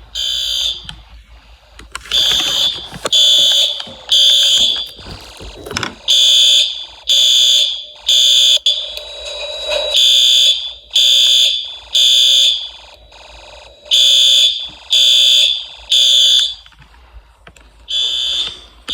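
Fire alarm sounding in the temporal-three evacuation pattern: three loud, high-pitched pulses about a second apart, then a pause, repeating. The first few seconds are more broken up before the steady three-pulse rhythm sets in.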